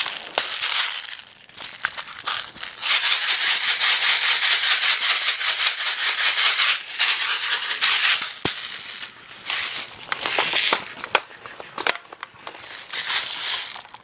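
Loud rustling and crinkling noise in irregular bursts, steadiest for a few seconds in the middle.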